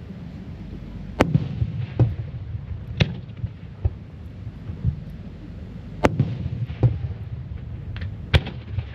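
Aerial firework shells bursting in a display: sharp bangs at irregular intervals of about one to two seconds, with a low rumble between them.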